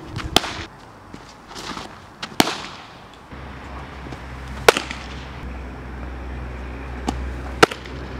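Fastpitch softballs smacking into a catcher's leather mitt: four sharp pops about two seconds apart, some with a brief rustle just before. A low steady hum comes in about three seconds in.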